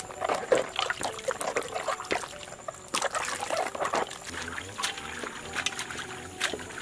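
Water splashing and trickling in a metal basin as hands rub and turn vegetables to wash them. Irregular small splashes, busiest in the first four seconds, then sparser.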